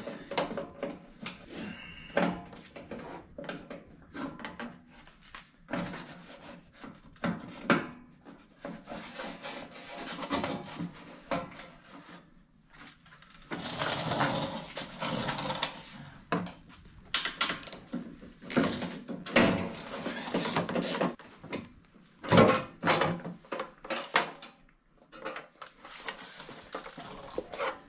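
Hand-tool work on a side-by-side's rear bodywork: irregular clicks, knocks and clatter as the bolts holding the plastic rear cover are undone and the cover is worked free, with a rough scraping stretch about halfway through and one sharp knock near the end.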